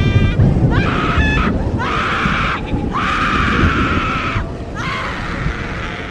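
Horror sound effect of screaming: about four long, harsh screams one after another with short breaks between them, over a low rumble.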